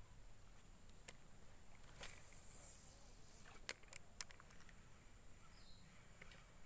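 A few faint sharp clicks, loudest about two thirds of the way in, from a fishing rod and baitcasting reel being handled.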